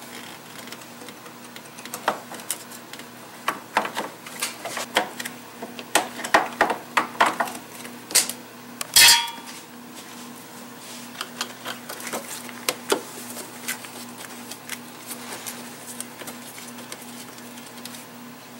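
Clicks and light metallic clatter of a hand tool undoing screws on a car's air intake, with one louder ringing metal clink about nine seconds in. A faint steady hum runs underneath.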